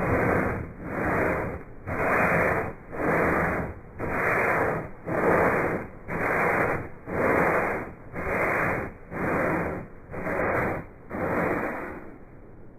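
Rhythmic back-and-forth strokes of sandpaper being rubbed by hand over a textured nonskid deck, a scratchy rasp about once a second. They stop shortly before the end.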